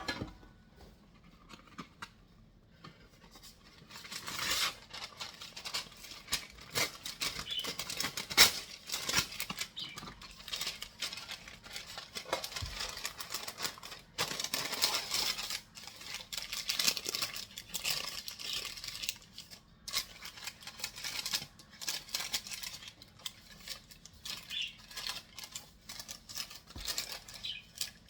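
Kitchen food-preparation sounds: a few light clicks, then from about four seconds in an irregular run of scraping, rustling and small utensil clicks as food and utensils are handled.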